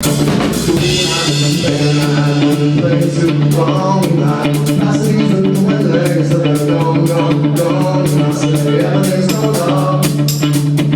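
A live band playing loudly through a club PA: a drum kit keeping a quick steady beat over a stand-up bass line, with other pitched parts moving above.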